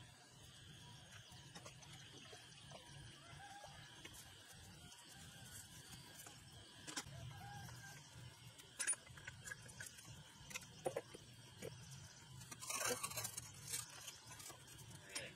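Quiet outdoor background with a few light knocks, and a short metallic rattle and scrape about 13 seconds in as a two-wheel walk-behind tractor is tipped over on concrete.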